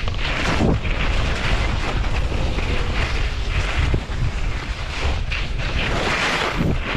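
Wind buffeting the microphone at skiing speed, over the hiss and scrape of skis carving turns on snow, swelling with each turn.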